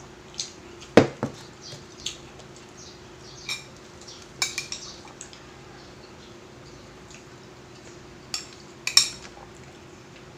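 Utensils clinking and scraping against plates while eating, in short scattered clicks with pauses between them; the sharpest knock comes about a second in.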